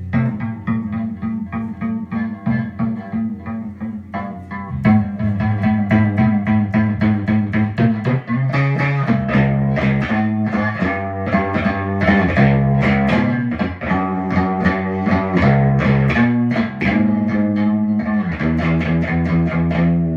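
Guitar playing a blues instrumental break between sung lines: a busy run of picked notes over a low line that moves every second or two.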